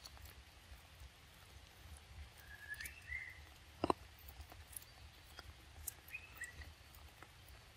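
Quiet outdoor ambience with a steady low rumble underneath. Two brief, faint, high chirping calls come about three seconds apart, the first about two and a half seconds in and the second about six seconds in. A single sharp click falls near the middle.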